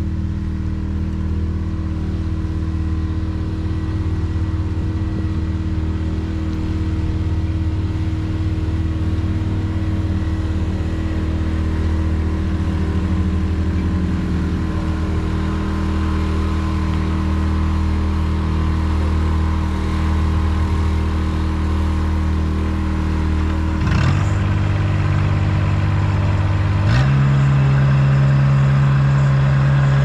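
Pickup truck engine running steadily close by while pulling a water tank trailer. Its note steps up suddenly twice, about three-quarters of the way through and again a few seconds later.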